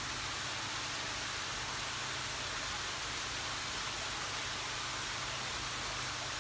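Steady hiss with a low, even hum underneath, the running water and pumps of an indoor koi house's filtration.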